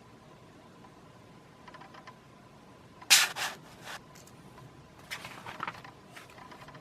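Paper pages of a printed catalog being handled and turned: a sharp crackle about three seconds in, then a second, softer run of rustling about two seconds later.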